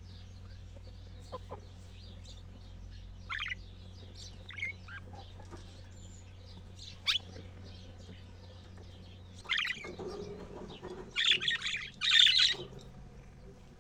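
Budgerigars chirping: scattered single high chirps, then two louder bursts of rapid chattering warble near the end.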